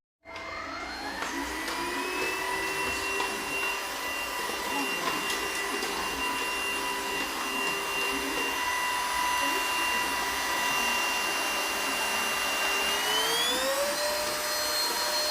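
Dibea H008 cordless vacuum cleaner's motor switching on, its whine rising to speed within about a second and then running steadily. About 13 seconds in, the whine climbs to a higher pitch and holds there.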